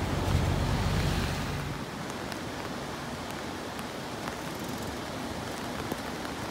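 Wind rumbling on the microphone over a steady rush of water. About two seconds in the rumble drops away, leaving an even hiss of rain and flowing river water.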